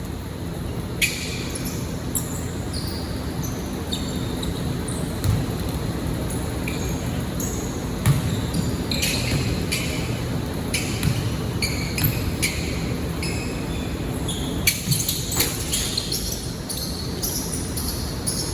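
Basketball game on an indoor court: the ball bouncing with dull thumps and sneakers squeaking in many short, high chirps over the steady murmur of the hall.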